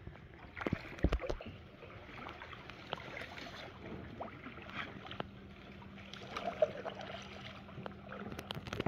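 Kayak paddle dipping and splashing in calm water in uneven strokes, with a few sharp knocks and a deep thump about a second in.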